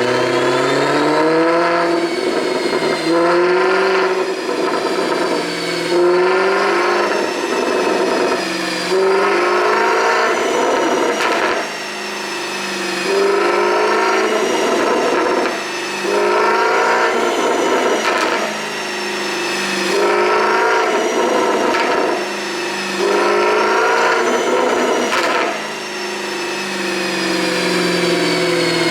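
Maserati GranTurismo 4.7S's 4.7-litre V8 revved again and again, about every three seconds, the pitch climbing and dropping each time. It carries an ECU tune meant to make the exhaust pop as the revs fall.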